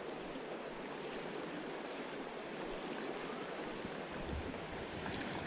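Steady rushing of a river's current flowing past.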